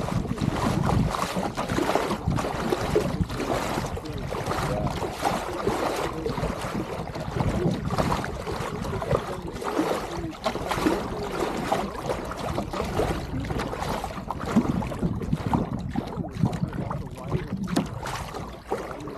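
Water rushing and splashing against the pram bow of a small SCAMP sailboat moving under sail, a dense, uneven hiss full of small splashes. Wind buffets the microphone with a low rumble, heaviest in the first second.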